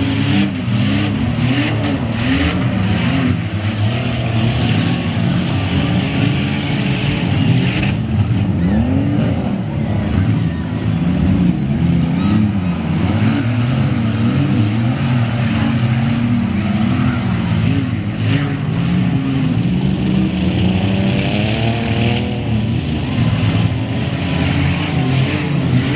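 Several derby-car engines running together, revving up and backing off over and over so that the pitch keeps rising and falling, with one clear rev-up about three-quarters of the way through.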